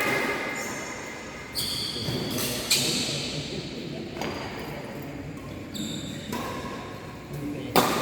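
Badminton being played in a large echoing sports hall: sharp racket strikes on the shuttlecock, two standing out about three and eight seconds in, and short high squeaks of shoes on the court floor.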